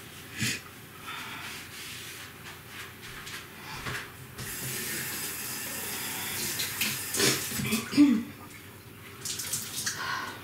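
Kitchen tap running for a few seconds, starting abruptly about four seconds in, followed by a couple of sharp clatters of kitchenware.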